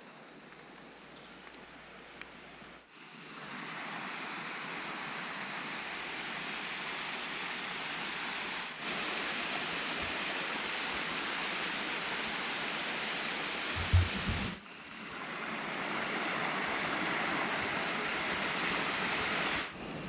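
Waterfall rushing steadily, faint at first and much louder from about three seconds in, breaking off abruptly a few times. A short low thump about fourteen seconds in.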